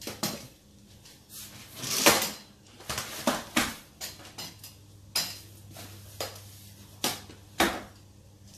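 A string of light knocks and clatters of hard objects being handled and set down, about a dozen spread unevenly, the loudest a sharp clack about two seconds in. A low steady hum runs underneath.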